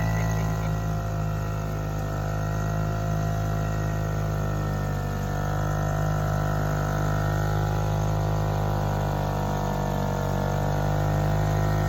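Freshly rebuilt British Seagull two-stroke single-cylinder outboard motor running steadily, its speed dipping slightly about five seconds in and again about ten seconds in.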